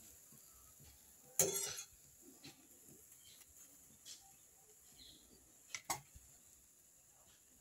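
Metal slotted skimmer scraping and clinking against the wok and bowl as fried falafel are lifted out: a short clatter about one and a half seconds in, a few light ticks, and a sharp knock near six seconds.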